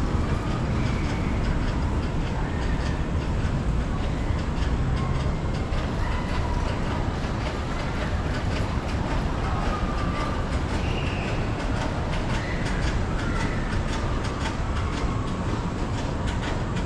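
Double chairlift running, heard from a moving chair: a steady rumble with light, regular clatter from the haul rope and chair passing over the tower sheaves, and a few faint squeals.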